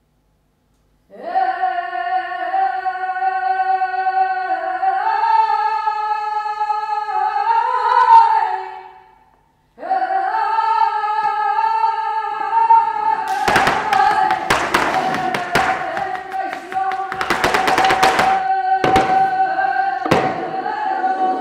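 A woman singing unaccompanied in long, sustained notes with small bends in pitch, broken by one short pause. From a little past halfway, loud sharp percussive knocks join in, in fast dense clusters and then single strikes.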